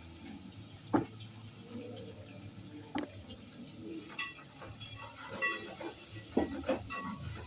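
Kitchen pot and utensils: two sharp knocks about two seconds apart, then a run of small ringing metallic clinks, over a steady high hiss.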